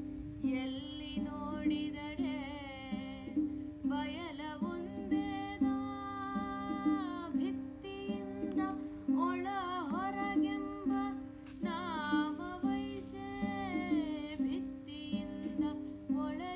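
A woman singing a vachana in a slow melody with gliding, wavering notes, accompanied by a long-necked plucked string instrument that repeats a steady low drone pattern. The voice pauses briefly between phrases while the plucking goes on.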